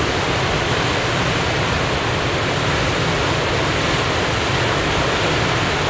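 Dam outlet releasing a large flow of water into the tailwater pool: a loud, steady rush of churning white water and spray.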